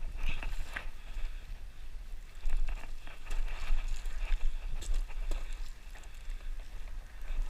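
Wind rumbling on the microphone, with scattered scuffs and knocks of a hiker climbing over rock.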